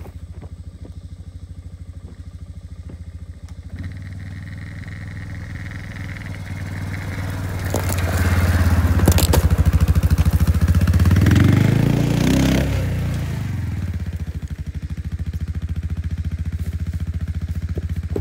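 ATV (four-wheeler) engine running steadily, then growing louder as the machine drives up close, with tyres crunching and scraping over dirt and weeds; loudest around the middle, with the engine pitch rising and falling, then it settles back to a steady idle.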